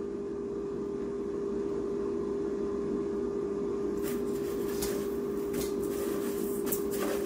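Steady fan hum of a Cosori air fryer running its cook cycle, with one constant pitched tone in it. Faint light knocks and clicks of handling come in from about four seconds in.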